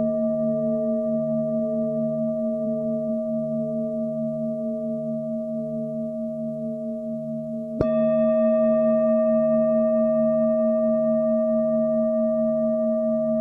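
Tibetan singing bowls ringing in long, slowly pulsing tones. A little past halfway another bowl is struck once, adding a brighter set of higher ringing tones that sustain.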